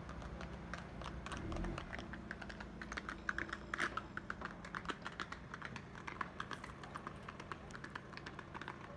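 Horse's hooves on a cobblestone path: a light, irregular clatter of sharp clicks, busiest a few seconds in.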